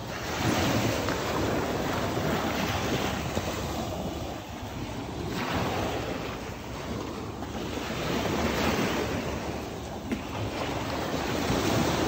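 Small waves washing up onto a sandy beach, rising and falling in several surges, with wind buffeting the microphone.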